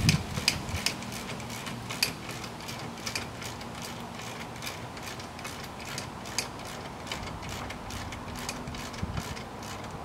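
Socket ratchet clicking in short runs as it is swung back and forth, backing out a brake caliper bracket bolt at a car's front hub.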